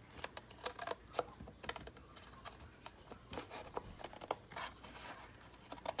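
Faint, irregular clicks and light rustles of paper and card packaging being handled.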